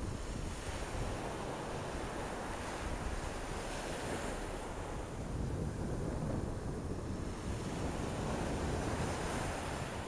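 Ocean surf washing up a sandy beach, a continuous hiss that swells and ebbs in two long surges, with wind rumbling on the microphone.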